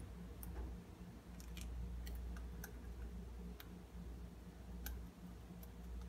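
Princess parrot grinding ("crisping") its beak: about ten short, sharp clicks at irregular intervals as the mandibles rub together. This is the sign of a relaxed, content bird settling to sleep. A low steady hum runs underneath.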